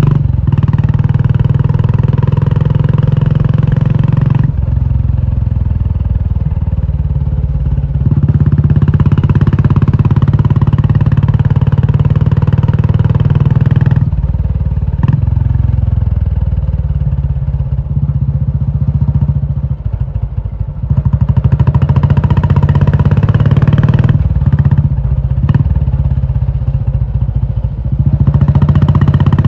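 Royal Enfield Classic 350's single-cylinder engine running through a loud aftermarket Indore exhaust, a low pulsing exhaust note. It gets louder and falls back several times.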